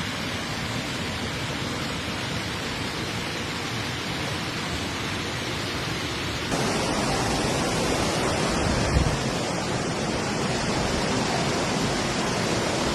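Steady rushing noise of fast-flowing floodwater. About six and a half seconds in it switches abruptly to a louder stretch of the same kind of noise, with a brief low thump about nine seconds in.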